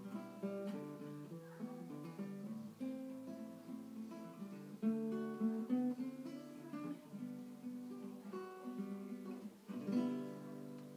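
Acoustic guitar played solo: picked notes and strummed chords in a steady rhythm, ending with a louder strummed chord about ten seconds in that rings out and fades.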